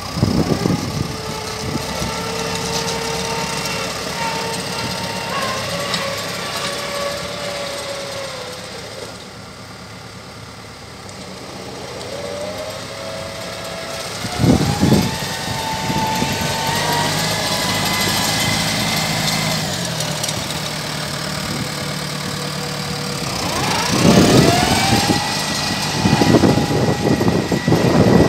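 Renault Ares 550RX tractor's diesel engine running as it is driven, its pitch rising and falling as it speeds up and eases off, with a quieter spell about a third of the way through. Sudden loud rushes of noise come about halfway and again near the end.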